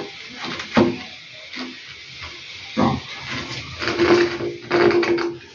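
PVC pipe being handled and pushed into its fittings without glue: knocks and scraping of plastic on plastic, with a squeaky tone about four seconds in as the pipe is turned in a fitting.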